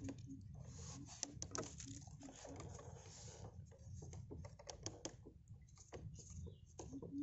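Irregular patter of water dripping and splashing from a raised lift net as fish flap in it and a scoop net is dipped under to collect them. A low pulsing sound repeats about four to five times a second during the first two or three seconds.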